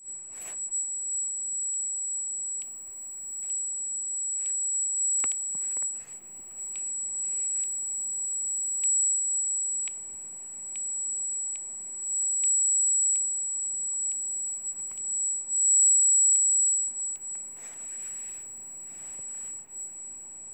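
A steady, very high-pitched pure tone played as a Rife healing frequency, with faint clicks about once a second and a short hiss near the end.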